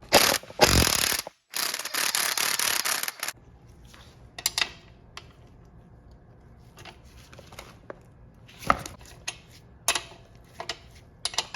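Ratchet wrench clicking rapidly in two loud runs over the first three seconds while undoing an M8 Allen-head shock bolt, followed by scattered lighter clicks and metal knocks from handling the tool and bolt.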